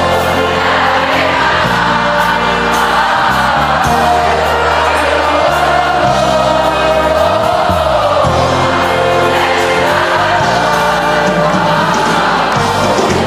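Large concert crowd singing along together with a live band, many voices blended like a choir over the music.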